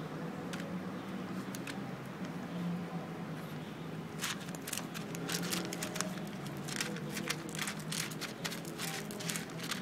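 A cat eating canned cat food from a foam takeaway box as chopsticks work the food in the box: dense, irregular clicking and crackling that starts about four seconds in, over a steady low hum.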